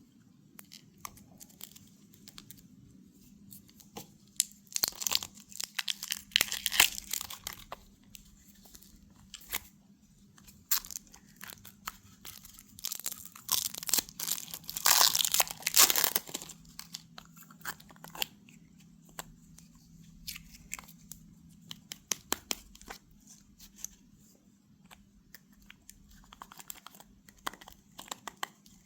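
Candy and toy packaging being handled and torn open: scattered small clicks and taps, with two longer spells of tearing and crinkling, about five seconds in and again around the middle.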